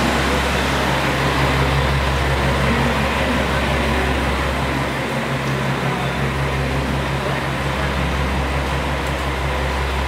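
A vehicle engine idling with a steady low hum over a constant background rumble.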